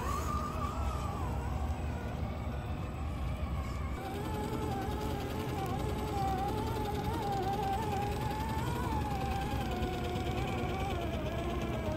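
Electric motor and geared drivetrain of RC scale crawlers whining as they crawl through mud, the pitch wavering up and down with the throttle. About four seconds in the whine changes to a steadier, lower tone as the Axial SCX10 III Jeep JT Gladiator crawls.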